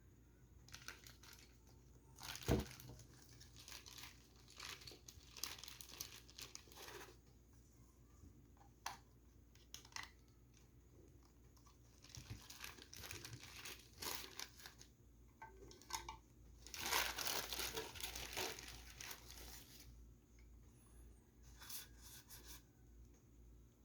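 Figure packaging being handled and opened: irregular crinkling and tearing, with a sharp knock a couple of seconds in and a longer run of crinkling late on.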